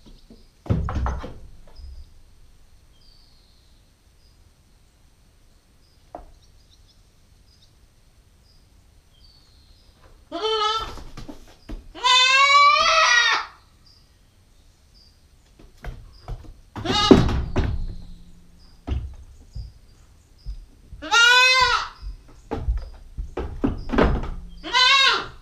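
Nubian goat kid bleating loudly four times, each call a wavering cry and the second about a second and a half long. Between the calls come several thumps and knocks, the loudest about two thirds of the way through.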